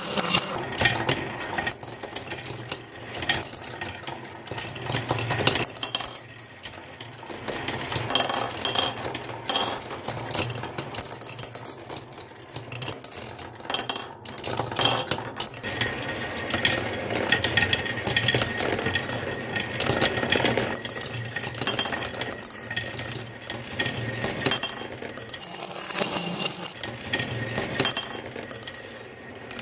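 Marbles rolling and clattering down a wooden HABA marble-run track: a steady rolling rumble under dense clicks and knocks, with bright ringing clinks as the marbles strike the pieces and each other.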